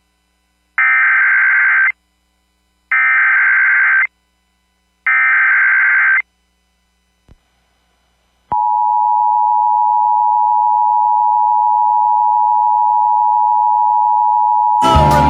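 Emergency Alert System signalling: three SAME digital header bursts of about a second each, a second apart, then the steady two-tone EAS attention signal (853 and 960 Hz sounded together) starting about eight and a half seconds in and held, announcing a National Weather Service tornado warning.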